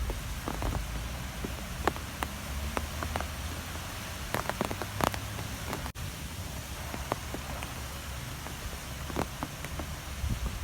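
Strong wind blowing: a steady low rumble and hiss, with scattered light ticks and taps throughout.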